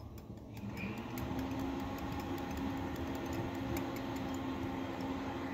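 Small handheld electric whisk running in a glass cup of thick mayonnaise sauce. Its motor spins up about a second in, rising slightly in pitch, and then whirs steadily. The wire whisk ticks lightly against the glass.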